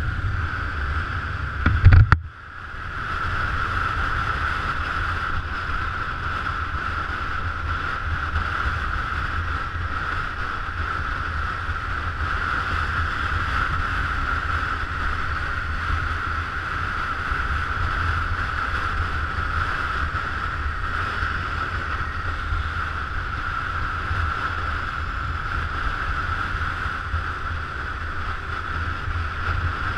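Wind rushing over the microphone of a moving scooter, with a steady low rumble and a constant mid-pitched hum; one loud knock about two seconds in.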